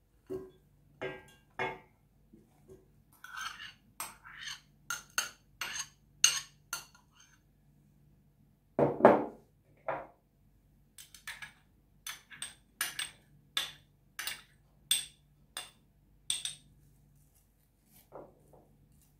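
Metal spoon clinking and scraping against a glass bowl and a stainless steel pot as chopped onion and minced garlic are spooned into the pot: runs of light, quick clinks, with one louder, duller knock about nine seconds in.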